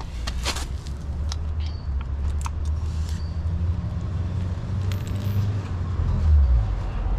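Light metallic clinks and small clatters as a brake caliper is picked up and handled, over a steady low rumble that swells briefly near the end.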